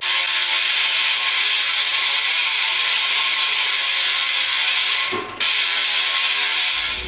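BMX rear hub freewheeling as the wheel spins, its pawls clicking so fast they run together into a loud, continuous high-pitched ratcheting buzz. The buzz breaks off briefly about five seconds in, then starts again.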